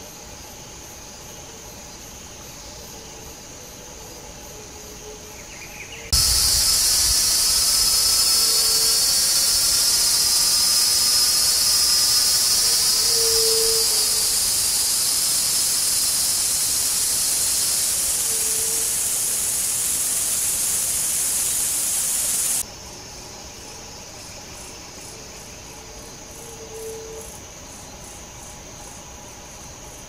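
Forest ambience of steady insect chirring. About six seconds in, a much louder hissing insect drone starts abruptly, then cuts off just as suddenly about sixteen seconds later.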